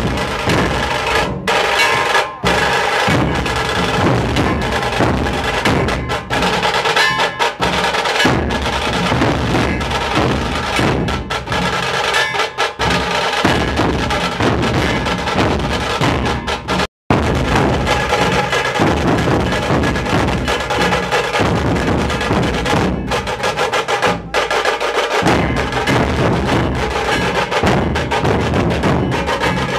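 Nashik dhol ensemble drumming: loud, dense, continuous beating on dhol drums, with one very brief dropout about halfway through.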